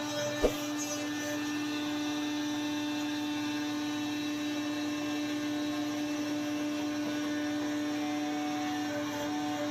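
A machine running with a steady hum, one strong held tone over fainter ones, and a single short knock about half a second in.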